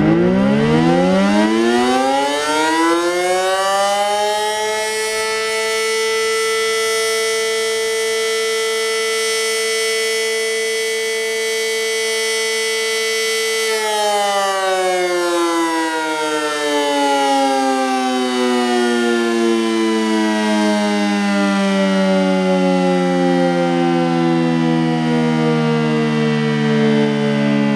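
Sterling M-10 electromechanical fire siren with an 8/12-port rotor, sounding a short alert. It winds up over about five seconds to a steady two-note wail, holds it for about nine seconds, then slowly winds down in pitch as the rotor coasts.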